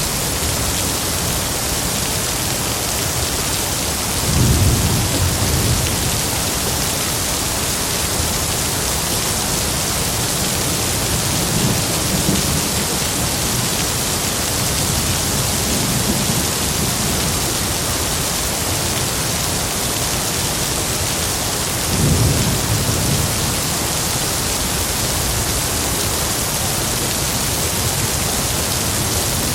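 Steady heavy rainfall, a dense even hiss, with low rumbles of distant thunder swelling up now and then: the strongest about four seconds in and again about twenty-two seconds in.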